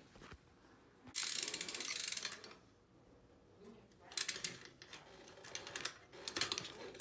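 Fat-tire BMX bike's rear hub freewheeling with a rapid ratcheting click for about a second and a half as the wheel turns, then shorter bursts of clicking near the middle and toward the end.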